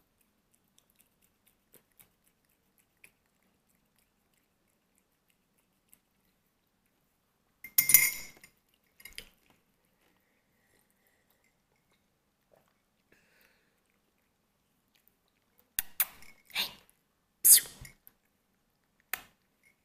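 Ceramic coffee mug set down and handled on a table, with the metal spoon in it clinking against the mug. There is a sharp clatter about eight seconds in and a quick run of knocks and clinks near the end, with quiet stretches between.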